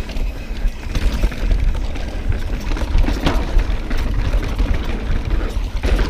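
Mountain bike riding over a rough, rocky dirt trail: wind buffeting the camera's microphone in a steady low rumble, with tyre noise and frequent rattles and clicks from the bike over the bumps.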